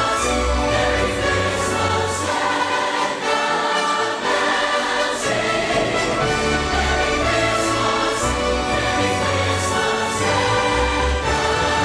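A choir singing with instrumental accompaniment: sustained chords over deep bass notes, with cymbal strokes now and then.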